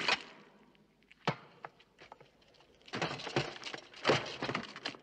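Film sound effects of a fight in armour. A loud crash at the start dies away, a single sharp knock comes about a second in, then a dense run of knocks and clatter starts about three seconds in.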